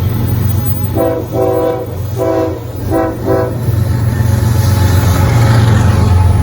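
BNSF freight train's diesel locomotive sounding its horn in several short blasts over a steady low engine rumble. After the horn, the rumble and rail noise grow louder as the train comes closer.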